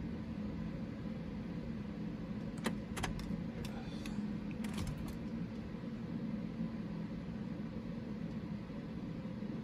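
Ignition key of a Ford Ranger being cycled to prime the fuel pump: a few sharp clicks about three to five seconds in, over a steady low hum.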